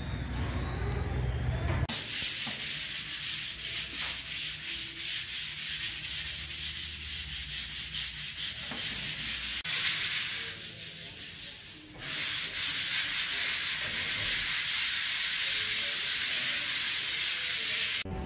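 Repeated abrasive rubbing strokes on a surface, starting about two seconds in, with a brief break about twelve seconds in.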